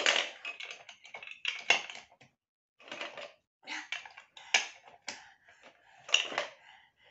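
Large plastic toy building bricks clattering and clicking as a toddler rummages through a plastic box of them and presses them onto a toy train: an irregular string of light knocks and rattles.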